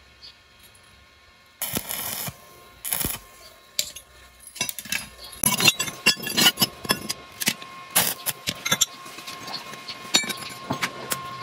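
Steel angle-bar pieces being handled on a concrete floor: two short scrapes a couple of seconds in, then from about halfway a run of metal clinks and knocks as the pieces are set into a frame.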